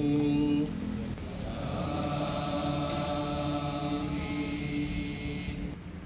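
A voice chanting an Islamic prayer in long drawn-out notes. One note breaks off within the first second, and a second note is held for about four and a half seconds, ending shortly before the end.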